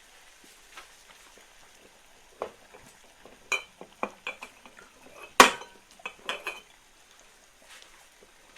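Glass jars and their lids being handled and set down on a hard surface: a run of clinks and knocks, some with a short glassy ring, the loudest a sharp clack about five and a half seconds in.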